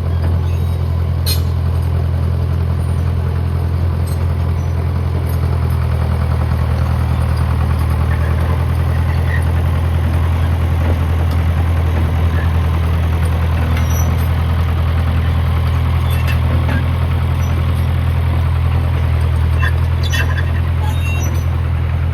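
John Deere 450 loader's engine idling steadily, with a few light clicks near the start and near the end.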